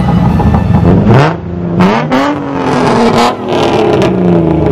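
Sports car engines revving as the cars pull away, the pitch rising and falling, with a few short sharp cracks between the revs.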